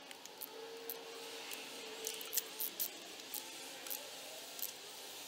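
Ratchet wrench clicking in short, uneven bursts while tightening cylinder head bolts through a digital torque adapter.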